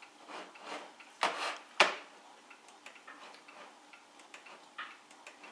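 Computer mouse being clicked: two louder sharp clicks a little over a second in and again just before two seconds, then scattered light, irregular clicks.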